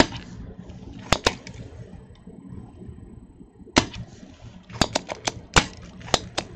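Spring-loaded solder sucker (desoldering pump) working on a motherboard's capacitor through-holes, clearing out the melted solder. It makes about ten sharp snaps, some in quick pairs, over a low background hiss.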